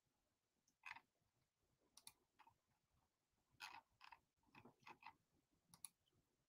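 Near silence with a few faint, scattered clicks and light handling ticks.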